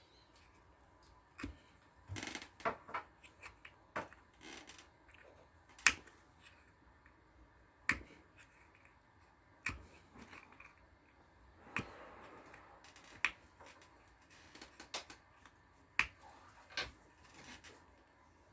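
Sharp snips and clicks of a plastic bottle cap being cut through, one every second or two, with faint handling rustles in between.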